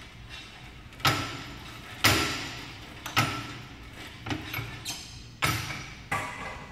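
Iron weight plates on a plate-loaded leg machine clanking against the metal lever arm with each rep: a series of sharp metallic clanks about one a second, each ringing briefly.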